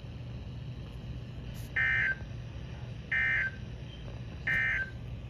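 Three short bursts of warbling two-tone digital data from a NOAA Weather Radio broadcast, about a second and a half apart: the SAME/EAS end-of-message code that closes a weather warning. A steady low hum runs underneath.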